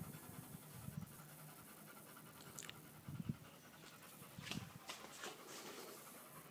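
An American Pit Bull Terrier panting faintly, with a few light clicks in between.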